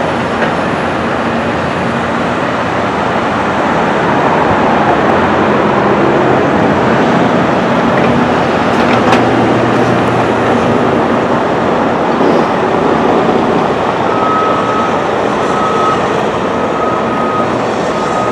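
Caterpillar excavator's diesel engine running steadily at a construction site, with a sharp knock about nine seconds in. Near the end a reversing alarm starts beeping, about once a second.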